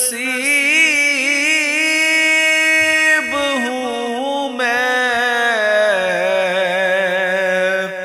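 Urdu naat singing: a voice holds long, wavering notes with melismatic runs, over a steady, lower held drone. There is no drum or beat.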